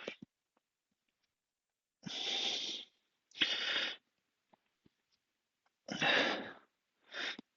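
A man breathing hard from the exertion of push-ups: four forceful, noisy breaths in two pairs, each pair an in-and-out.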